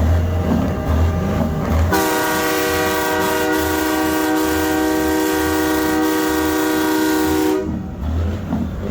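A multi-chime train horn sounds one long steady chord for about five and a half seconds, starting about two seconds in and cutting off suddenly near the end. A vehicle engine rumbles low before and after the blast.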